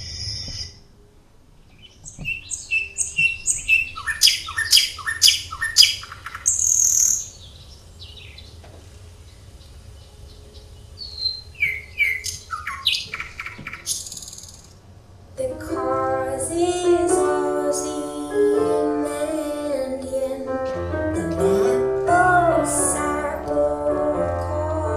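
Recorded birdsong: quick, high chirps in two spells separated by a quieter gap. About fifteen seconds in, music with several sustained, gliding melodic lines comes in and carries on.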